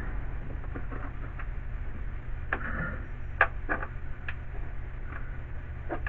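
Light clicks and knocks of metal and plastic parts being handled in a car's windshield cowl as a bolt is worked into place by hand, about four distinct ones in the middle seconds, the loudest a little past halfway, over a steady low hum.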